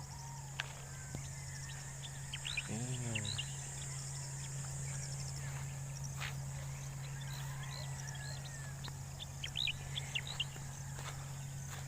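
Small birds chirping in quick runs of short high calls, about two to three seconds in and again around nine to ten seconds, over a steady low hum. A short low call rises and falls about three seconds in.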